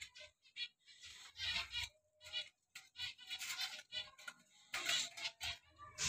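Wire birdcage clinking and rattling in short, irregular clicks as a hand works at its door wire, with budgerigars chirping now and then.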